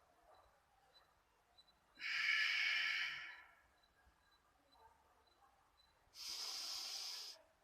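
A person's deep, audible breaths in viloma anuloma pranayama: two long breaths of about a second each, one about two seconds in and one near the end, with the breath held in the quiet gaps between them.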